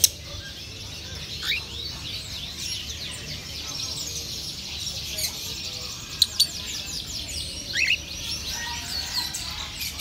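Birds chirping continuously in quick high twitters, with a rising whistled call twice, once about a second and a half in and again near the end. A few sharp clicks stand out, one at the very start and two in quick succession just after six seconds.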